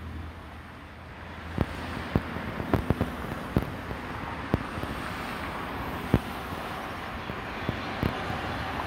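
Boeing 737-800's CFM56 turbofan engines heard from the ground on final approach: a steady rushing noise that grows louder from about a second in, with a faint steady tone joining near the end. Scattered sharp clicks throughout.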